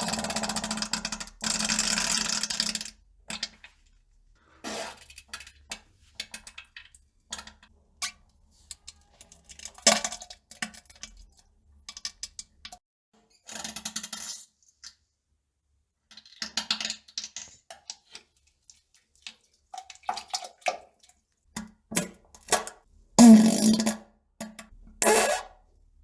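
Someone on a toilet passing gas and stool: a string of short, separate farts and plops with silent gaps between them. The loudest two come in the last few seconds.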